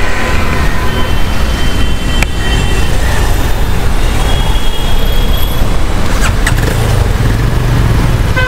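City road traffic: a steady low rumble of passing cars and motorbikes, heard while riding along the road.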